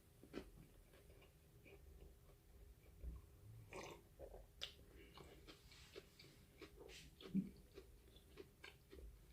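Faint chewing of food, with scattered soft clicks.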